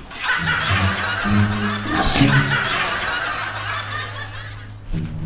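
Recorded laughter over background music with a steady low note.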